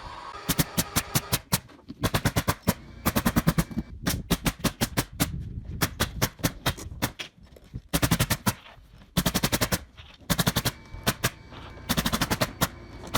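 A power tool on the framing firing rapid runs of sharp mechanical impacts, about ten a second, in bursts of roughly half a second to a second with short pauses between.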